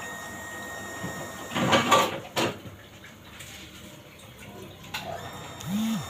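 Dishes being washed by hand at a kitchen sink: a few clinks and clatters of crockery and pans about two seconds in, over a low wash of water.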